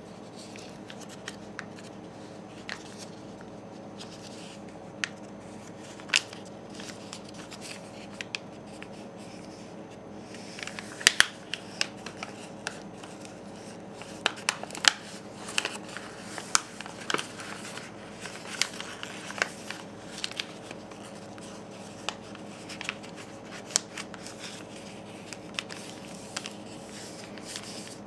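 A sheet of paper being folded and creased by hand on a wooden table: scattered crisp rustles and crackles, busiest in the middle stretch, over a steady low background hum.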